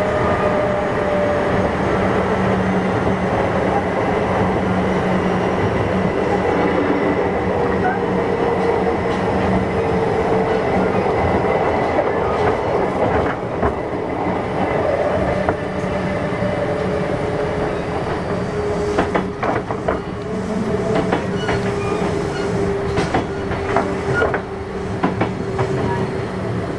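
Kintetsu 6200 series electric train running, with a motor and gear whine that slowly drops in pitch. From about halfway through, wheel clicks over rail joints come through the running noise.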